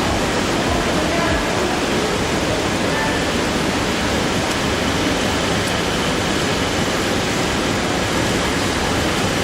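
Wood-milling machine for door and window frames running with a loud, steady, even noise.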